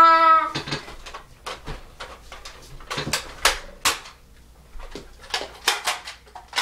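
Toy Nerf blasters being primed and fired: a dozen or so sharp plastic clicks and snaps at irregular intervals. A child's held shout ends about half a second in.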